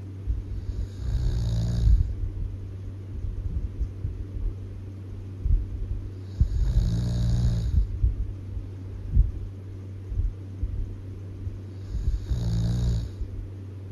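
Loud snoring: three long snores, one about every five to six seconds, over a steady low hum.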